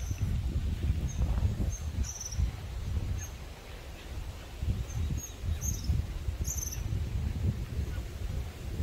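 Small birds giving short, high chirps, scattered irregularly and loudest about two seconds in and again near six and a half seconds, over a steady low rumble of wind on the microphone.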